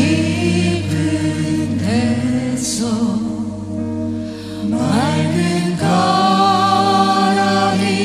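A choir and congregation singing a slow worship hymn with instrumental accompaniment, holding long notes.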